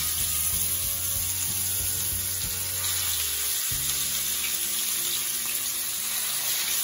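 Marinated fish steaks sizzling steadily as they shallow-fry in hot mustard oil on a flat iron tawa, while more pieces are laid into the oil.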